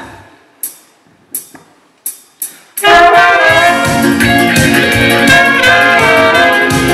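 Four sharp clicks count the band in. About three seconds in, a small band starts the song together, saxophone and trumpet carrying the melody over a steady low beat.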